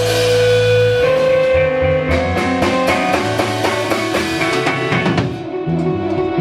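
A band playing experimental rock live with drum kit and guitar. A held chord gives way about a second in to a busy run of quick notes over drums, which thins out near the end.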